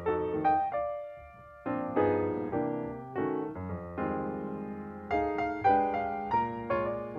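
Piano music: a light melody of struck notes over chords, with a brief pause about a second in.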